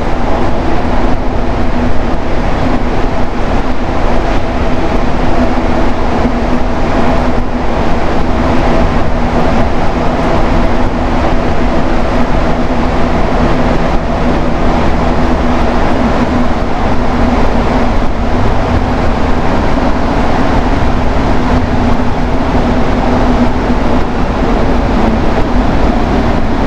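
Montreal metro train, a rubber-tyred subway car, running at speed between stations, heard from inside the car. It makes a loud, steady rumble with a few steady humming tones and does not let up.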